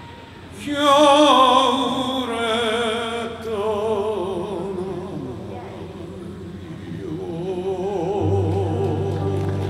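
Live ballad music at its close: a slow melody of long held notes with wide vibrato, falling in pitch, over a quiet band. A low bass note comes in near the end.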